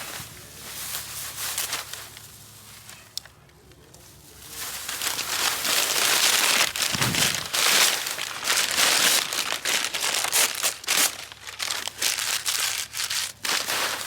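Close crumpling and crackling handling noise, with many irregular sharp crackles, getting much louder about four and a half seconds in.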